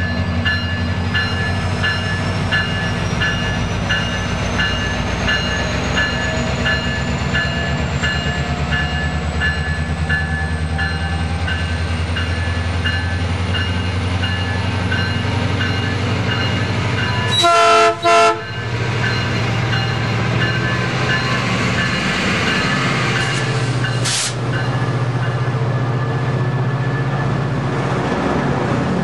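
MP36PH3-C diesel locomotive pulling slowly into a station, its engine running steadily and its bell ringing about twice a second. Just past halfway the horn gives two short blasts, the loudest sound. A brief hiss of air follows a few seconds later.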